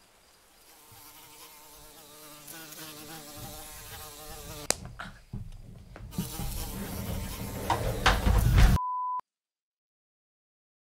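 A buzz with wavering pitch, like a fly, with a sharp click about halfway through, then a low rumble building to a loud peak that cuts off suddenly, followed by a short steady beep.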